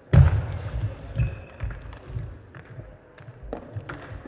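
Table tennis point ending: a loud hit just after the start, then the ball clicking and bouncing several times at uneven intervals over the next few seconds.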